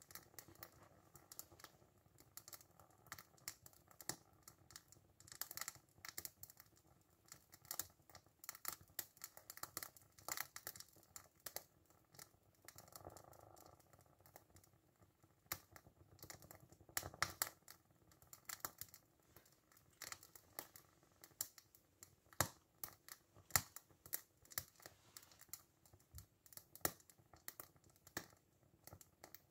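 Faint, irregular crackling and ticking from a small hand-built toy steam engine as its Sterno-fired copper boiler heats up.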